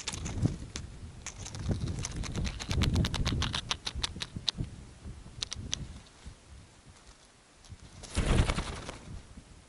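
Black-bellied plover at its nest: a run of short, sharp, high ticks, about five a second at their quickest, over low rustling close to the microphone. Near the end comes a brief loud burst of wingbeats as the bird takes off.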